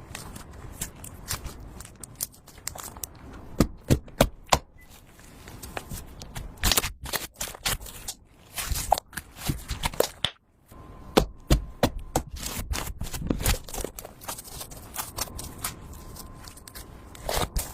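Blue slime being worked, giving irregular sharp clicks and pops, with a brief pause about ten seconds in.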